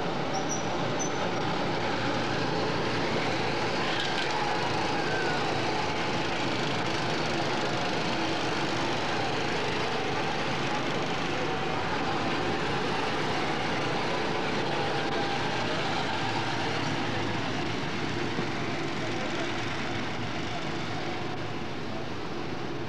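Several go-kart engines running steadily as the karts drive around the track.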